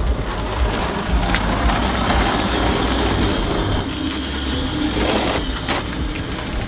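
Lowered Toyota Tazz hatchback driving slowly past, its engine running steadily with a low rumble.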